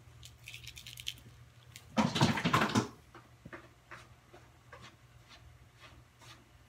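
A cat's claws scrabbling on a carpeted cat tree: a quick run of light ticks, then a loud scuffling scramble lasting just under a second, followed by scattered soft clicks and scratches.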